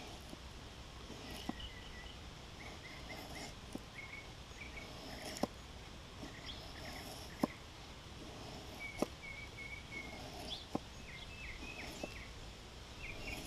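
A large Scandi-grind knife cutting into cedar wood: several sharp knocks a second or two apart. Small birds chirp throughout.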